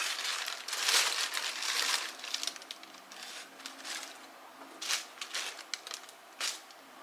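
Wrapping paper crinkling and rustling while a pair of canvas sneakers is handled, densest in the first two seconds, then scattered shorter rustles and light taps.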